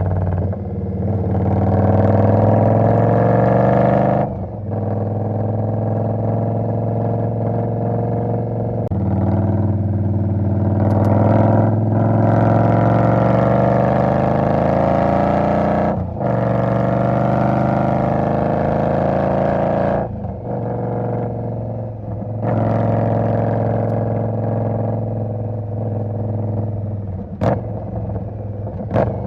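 2020 Indian Scout V-twin engine under way. Its pitch climbs for a few seconds at a time, then drops in brief breaks several times, as the bike is accelerated and shifted up through the gears. A few sharp clicks come near the end.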